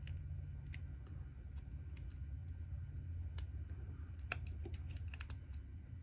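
An X-Acto knife trimming and scraping the edge of a small white plastic sensor case, making scattered small clicks and ticks. A low steady hum runs underneath.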